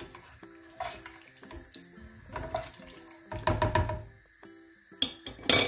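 Soft background music, over which a plastic spatula stirs through liquid dal and knocks and scrapes against the rim of a metal pressure-cooker pot several times, the sharpest knock near the end.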